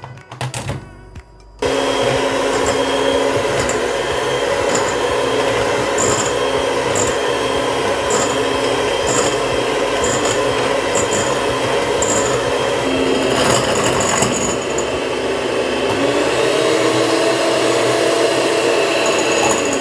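Electric hand mixer switched on about a second and a half in, its two beaters whipping frozen canned milk in a glass bowl with a steady motor whine. The pitch rises a little near the end, then falls as the mixer switches off.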